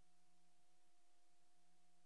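Near silence: an empty soundtrack carrying only a faint steady hiss and a low hum.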